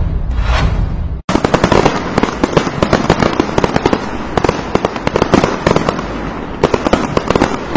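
A whooshing effect over a low rumble for about the first second, then an abrupt cut to fireworks: dense, rapid crackling and popping with frequent louder bangs.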